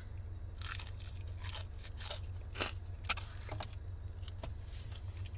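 Someone biting into a hand-breaded fried chicken tender and chewing it close to the microphone: irregular soft crunches and mouth clicks, the loudest around the middle, over a steady low hum.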